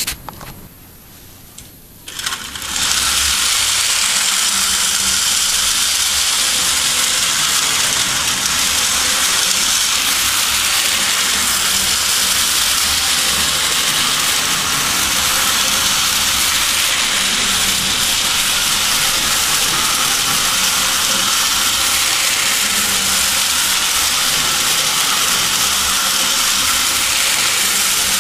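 1930 Bing tinplate electric toy train running around its tin track, a loud, steady whirring rattle that starts about two and a half seconds in after a couple of short clicks.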